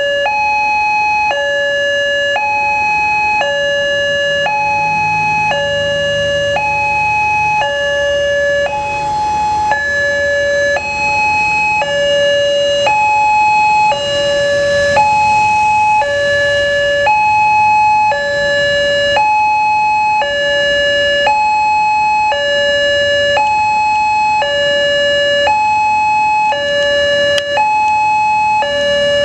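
Indonesian railway level-crossing warning alarm sounding its two-tone 'ting-tong' signal: a lower and a higher electronic tone alternate evenly, each held about a second, warning that a train is approaching and the barriers are down.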